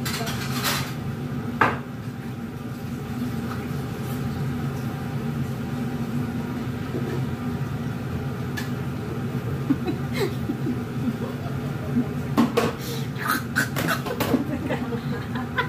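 Steady low hum of a kitchen range hood fan over a gas stove, with a few sharp clinks of pans or dishes. Short vocal sounds come near the end.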